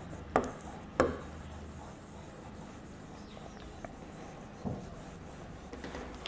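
A hand writing on the glass of an interactive touchscreen board: faint rubbing with a few light taps, the clearest about half a second and a second in and a smaller one near five seconds.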